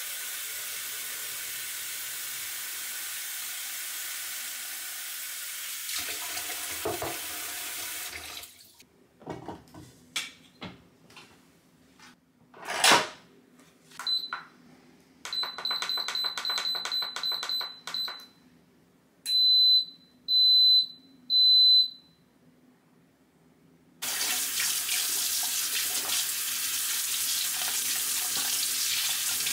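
Kitchen tap running into a stainless steel pot, then a few knocks and one sharp loud clack. An Instant Pot electric pressure cooker beeps, first a stretch of high beeping with rapid clicks as its buttons are pressed, then three separate longer beeps. Near the end the tap runs again into the sink as a dish is scrubbed with a sponge.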